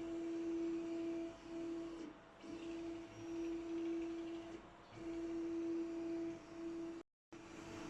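DIY inkjet resin 3D printer running: a steady motor whine on one pitch that stops briefly and starts again several times as the printhead moves, then cuts out for a moment near the end.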